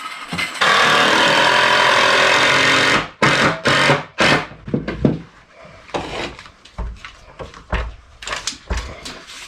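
A power saw runs loudly for about two and a half seconds and stops abruptly, then comes a string of knocks and clunks of wood being handled.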